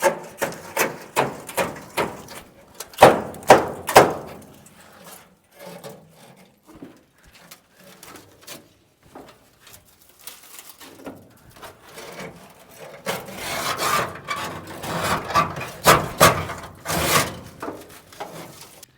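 Burnt copper wire and debris being pulled out of a burnt-out car: a run of knocks and clatter, then a longer stretch of scraping and rattling near the end.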